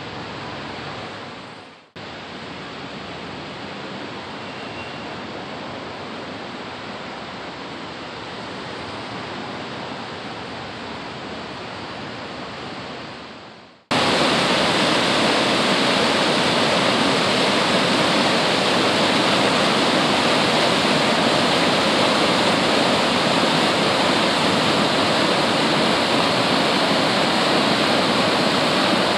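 Rushing floodwater of a swollen mountain river, a steady whitewater rush raised by heavy rain. It is moderate at first, then after a cut about 14 seconds in it is much louder and closer.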